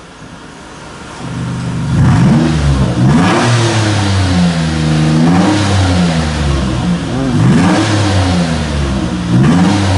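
Mitsubishi Pajero's 3.8-litre gasoline V6 revved through an aftermarket exhaust with its electronic cutout valve switched to sport mode (open). It starts quietly at idle, then about a second in climbs and is blipped up and down several times, each rev rising and falling in pitch.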